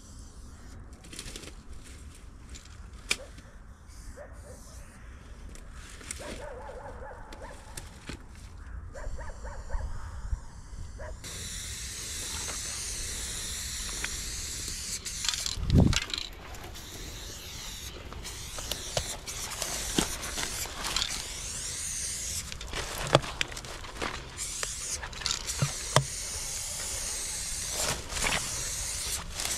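Aerosol spray paint can hissing in long, steady sprays onto a concrete wall, setting in about a third of the way in. Scattered sharp clicks throughout, and a low thump near the middle.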